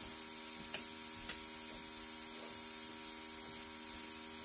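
Steady hum of a small Luminess airbrush air compressor running, with two faint light clicks in the first second and a half.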